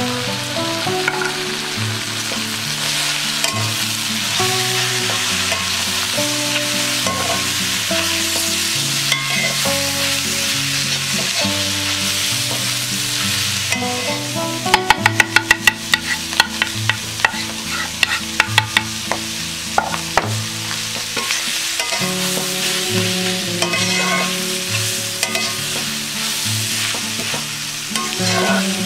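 Squid pieces in spiced oil sizzling in a black iron kadai while a metal spatula stirs and scrapes them. About halfway through comes a quick run of spatula clanks against the pan, then scattered clanks for a few seconds.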